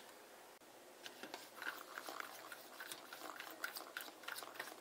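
Metal spoon beating cream cheese in a plastic tub: quick, irregular clicks and scrapes of the spoon against the plastic, starting about a second in.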